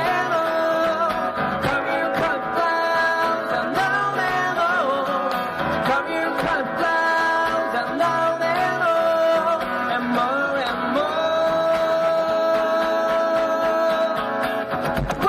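A song performed by a singer with guitar: a voice sings a gliding melodic line over continuous guitar playing.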